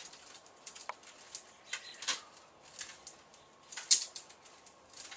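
Irregular soft clicks and rustles of hands handling small objects, a few scattered strokes with the sharpest about four seconds in, over a faint steady hum.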